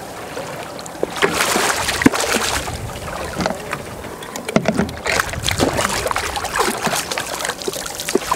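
A hooked small halibut thrashing at the water's surface beside the boat, its body and tail splashing the water in repeated bursts.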